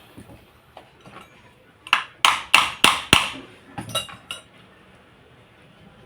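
A quick run of five sharp metallic knocks, about three a second, followed by a few lighter clicks, like metal parts being tapped or knocked together while working on an electric fan.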